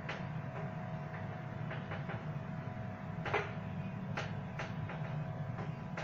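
A steady low hum with faint steady tones above it, and a scattering of light knocks and clicks, the loudest a little past halfway.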